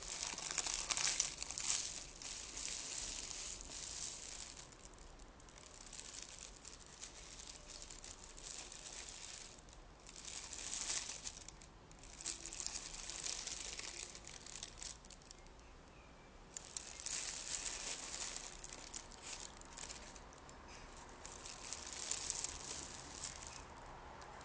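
A small piece of paper being crumpled and crinkled by hand: dry crackling that comes in spells, swelling and fading with short pauses between them.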